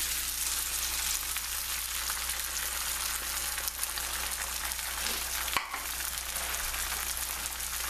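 Egg whites frying in a hot non-stick pan of broccoli and zucchini on high heat: a steady sizzling hiss as the whites hit the pan and set. A single sharp click about two-thirds of the way through.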